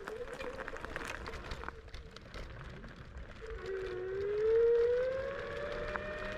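The 500-watt geared motor of an IO HAWK Legend e-scooter gives a whine that climbs in pitch as the scooter speeds up, starting a little past halfway and loudest just after. Before that, the whine is faint, under scattered knocks.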